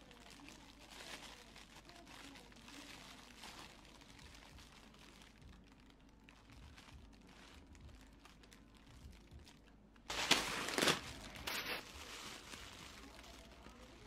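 Thin plastic bakery bag crinkling as bread is handled: soft rustling, then a louder burst of crinkling about ten seconds in.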